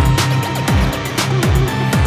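Electronic music with a steady beat of deep kick drums that drop in pitch, about two a second, under a held high tone.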